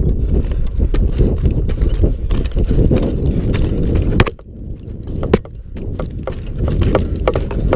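Lineman's gaffed climbers knocking into a wooden utility pole, with clinks of pole-strap snaps and hardware, as he climbs the pole. A heavy low rumble on the microphone runs under the knocks and drops off about four seconds in.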